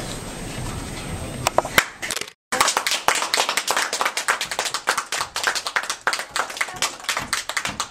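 Audience clapping, many hands at once, starting about two seconds in.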